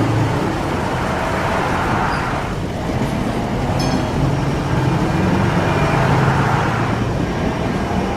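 Bulldozer's diesel engine running steadily, easing off briefly about two and a half seconds in and then picking up again.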